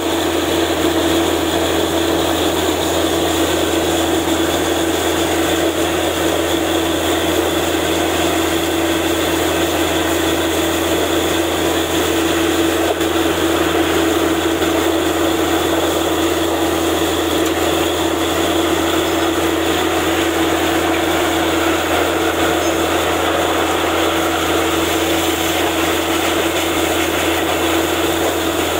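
Borewell drilling rig running steadily, its engine and air compressor driving the drill while compressed air blasts water and rock cuttings out of the bore in a continuous loud rush.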